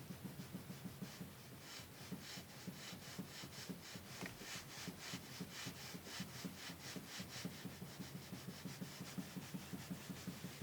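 Knock in the steering of a 2010 Skoda Octavia A5 facelift: a fast, even low knocking with a series of rasping, rubbing strokes about four a second through the middle, then fading near the end.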